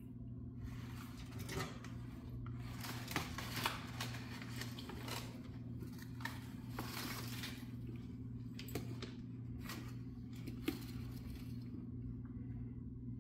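A tegu's claws scratching and clicking on a hardwood floor as it crawls, in irregular scrapes with a few sharper clicks.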